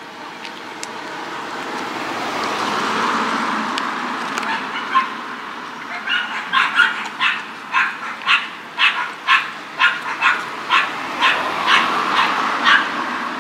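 A dog barking repeatedly from about six seconds in, about two barks a second, lots of barking. Before the barking starts, a steady rushing noise swells and fades.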